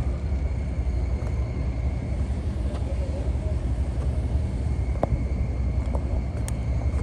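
Steady low rumble of an idling car engine, with a faint steady high tone and a few faint clicks over it.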